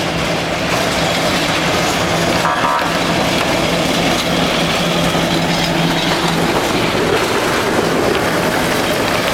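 Vintage tram running past on street rails: a steady rumble of wheels on track, with a low hum that fades out a little past the middle.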